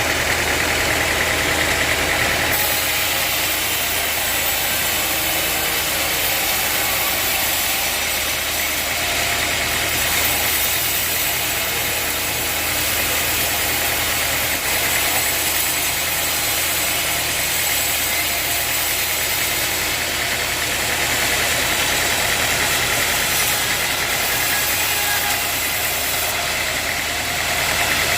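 Sawmill machinery running steadily: a continuous motor hum with a dense hiss over it, with no break or pause.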